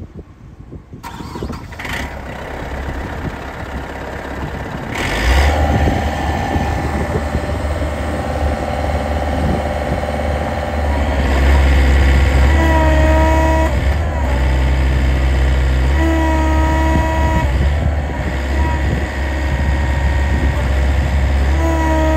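AECT 3500 compressed earth block machine starting up and running, getting louder and deeper about five seconds in. It then cycles its hydraulic press, with a brief whine three times in the second half, as the newly fitted press plate is tested for alignment.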